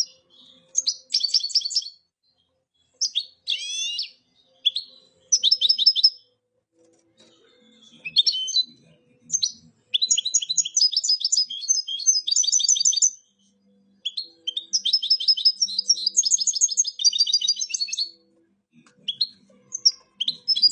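European goldfinch singing: a string of fast, liquid twittering and trilled phrases, broken by short pauses. Two long runs of song come about halfway through and again near the end.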